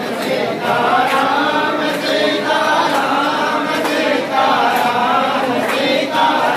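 Several voices chanting together without a break, a Hindu devotional chant.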